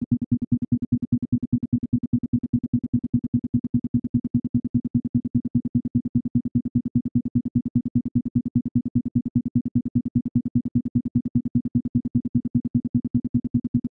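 Isochronic tone: a low synthesized tone switched on and off in rapid, evenly spaced pulses, steady in pitch and pace.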